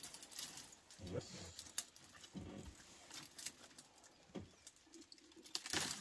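Sekelbos (sickle bush) twigs crackling and snapping as an elephant breaks and strips them with its trunk: scattered sharp cracks and rustles, with a louder cluster of cracks near the end.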